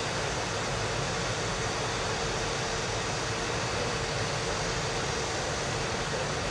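Hydraulic cargo lift in operation as its platform travels: a steady rushing noise with a constant mid-pitched whine.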